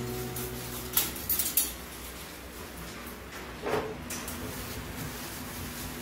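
Light metallic clinks and rattles of a wire dog cage and its floor grate: a quick cluster about a second in and another clink near the middle.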